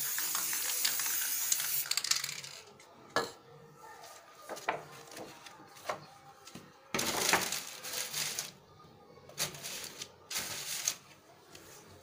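Aerosol spray-paint can spraying in a steady hiss for about the first two seconds, then sharp taps and clicks of the can and paper being handled, and two more spray bursts later on, the second one short.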